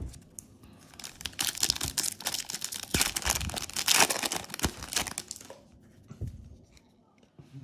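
Yu-Gi-Oh booster pack's foil wrapper being torn open and crinkled by hand, a dense crackling rustle for about four seconds that then dies down to a few faint rustles.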